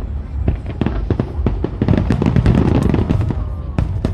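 Fireworks going off: a rapid run of crackling bangs and booms, densest in the middle, with two sharp cracks near the end.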